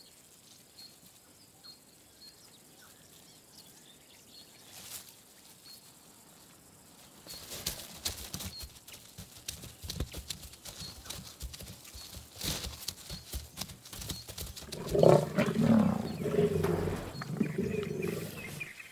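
Lions growling over a young giraffe kill. A loud stretch of growls comes about fifteen seconds in and lasts a couple of seconds. Before it, after several very quiet seconds with faint regular ticking, there is a run of knocks and rustling.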